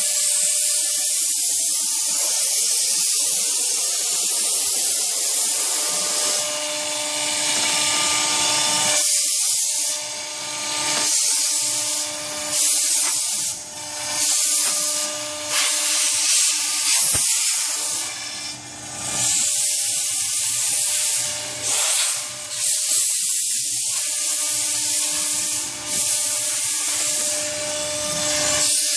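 A CNC router spindle whines steadily as it cuts a groove through pink foam board, with loud hissing blasts of compressed air from a blow gun, on and off, clearing the foam chips from the cut.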